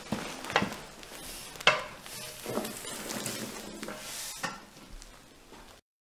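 Flames crackling in a metal bin while a metal milk churn is lowered onto it to smother the fire, with several knocks and scrapes of metal on metal, the loudest about one and a half seconds in. The sound cuts off suddenly near the end.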